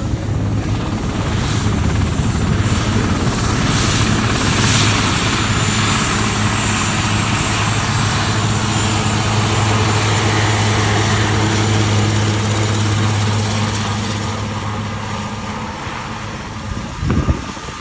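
Airbus H215 Super Puma helicopter taxiing on the runway: the twin turboshaft engines whine high over the steady sound of the turning rotors and a strong low hum. It eases off a little toward the end, and a short loud burst of noise comes just before the end.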